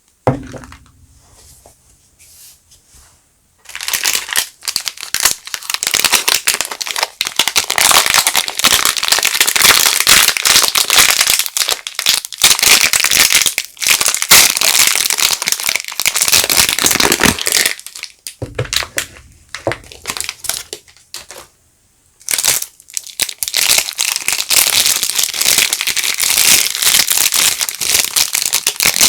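Soap wrapping crinkling and rustling as bars of soap are unwrapped by hand, in two long stretches with a few seconds' lull between them. A single knock comes right at the start.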